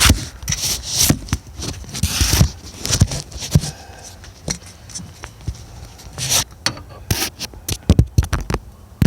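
Close handling noises at the microphone: irregular sharp clicks and knocks with a few short scraping rubs, as the recording device is propped in place and metal parts and tools are handled.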